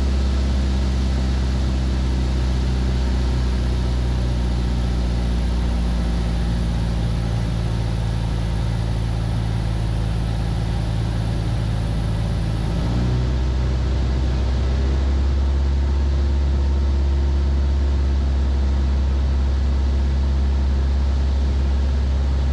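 Van's RV-7's piston engine and propeller droning steadily in the cockpit during slow flight, the engine note rising slightly a little past halfway.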